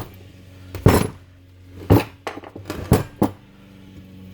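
Hard metal clunks from a Toyota Venza front wheel hub and bearing assembly being handled and turned by hand: about five sharp knocks spaced roughly a second apart. The newly pressed-in wheel bearing binds up and will not spin freely, which the owner takes for a botched press job.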